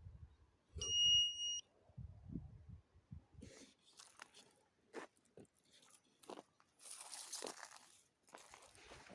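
A single steady electronic beep about a second in, lasting under a second, followed by irregular crunching sounds.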